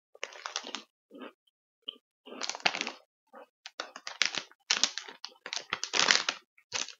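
Plastic snack bag crinkling and crackling as it is handled, in several irregular bursts, the loudest about six seconds in.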